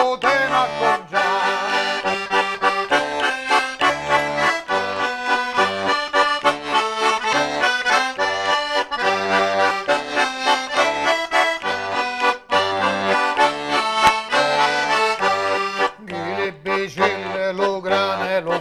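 Diatonic button accordion (organetto) playing a tune over a steady alternating bass-and-chord pulse. A man's singing voice trails off about a second in and comes back near the end.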